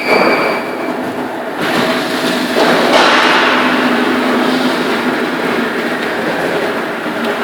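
Sheet-metal duct-making machine line running: loud metal clanking and thumps over a steady machine hum, with sudden surges of noise at the start and twice more in the first three seconds.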